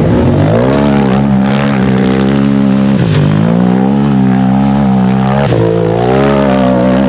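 A UTV race buggy's engine revving hard at high throttle as it climbs a dirt hill. The pitch rises, drops sharply twice as the revs fall away and pick back up, and climbs again.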